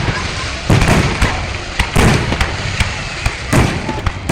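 Fireworks going off: a rapid, irregular run of sharp bangs and pops, several a second, over a continuous crackle.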